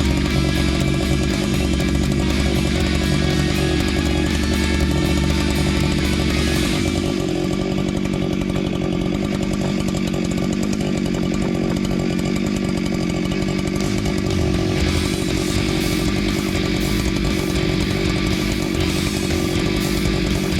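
Chainsaw running hard as it cuts into a tree. The sound is continuous, and its tone shifts about seven seconds in and again near fifteen seconds.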